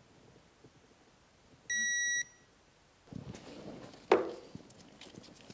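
Digital torque wrench giving one steady high beep of about half a second, the signal that the spark plug has reached the set torque of 18 foot-pounds. About two seconds later, tool-handling rustle and a sharp clack as the wrench comes off the plug.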